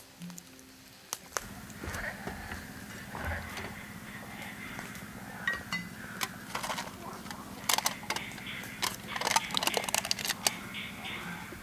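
A lid being pried and peeled off a small food cup by hand: a run of sharp clicks and crinkles, densest in the second half, over a steady low hum.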